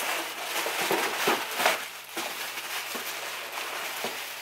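Rustling and handling noise with several short knocks and clicks.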